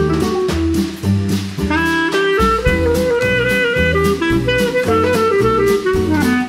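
Instrumental background music with a steady beat of bass and drums under a melody line.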